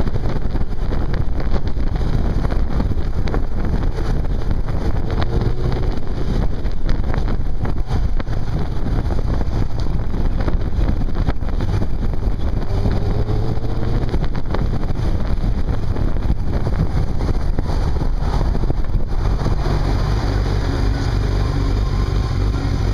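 Wind buffeting the microphone of a Yamaha YZF600 motorcycle on the move, with its inline-four engine running underneath; the engine note rises twice as the bike pulls. Near the end, as the bike slows in traffic, the wind eases and a steadier low engine note comes through.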